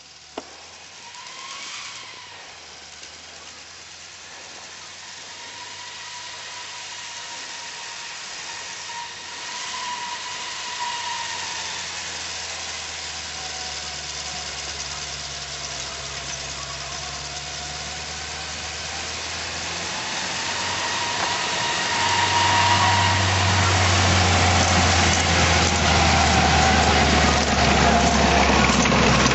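Steyr-Puch Pinzgauer off-road truck's engine running as it ploughs through deep snow toward the camera, growing steadily louder as it comes close and passes alongside.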